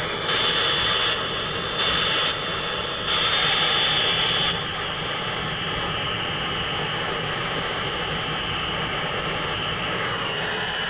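Brazing torch flame hissing steadily as it heats a joint, swelling louder three times in the first few seconds, then cutting off suddenly at the end.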